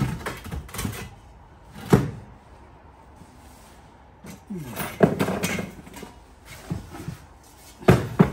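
A series of separate sharp knocks and clunks a second or more apart, from steel pieces and tools being handled and set down on a workshop bench. The loudest come about two seconds in, about five seconds in and twice near the end.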